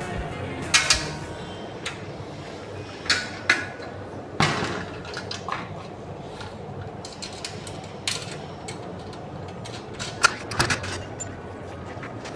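Intermittent metallic clinks, clicks and knocks as steel table-saw leg-stand pieces and their bolts are handled and fitted together by hand, over a steady low background hum.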